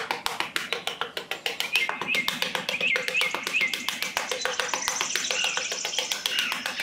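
Background music with a fast, even ticking beat, about eight ticks a second, and short bird chirps over it.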